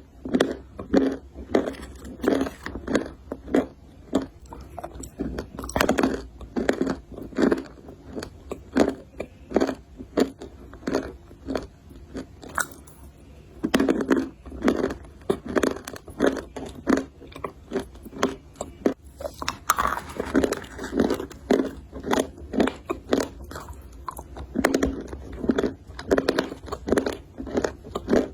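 Close-miked crunchy biting and chewing of a hard, brittle food, about one to two crunches a second.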